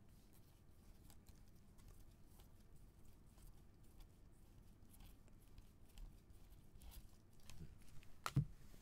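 Trading cards flicked through one by one in gloved hands: faint, soft ticks and rustles of card stock, then a single thud about eight seconds in as the stack is set down on the desk.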